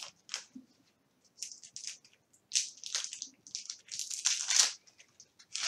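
Wax candles being twisted and pressed into a cut-glass candle holder, giving irregular short scraping and crunching noises.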